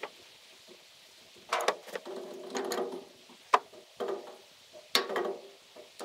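Wrench turning a threaded fitting on a fuel filter head: a series of clicking, creaking strokes, about five in all.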